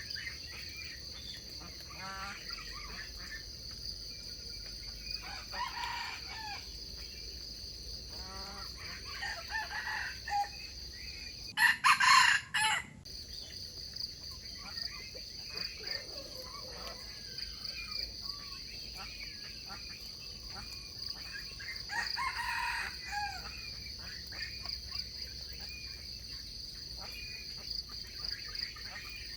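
Wild junglefowl roosters crowing several times, some distant and one much louder and closer about twelve seconds in. A steady high insect drone runs underneath.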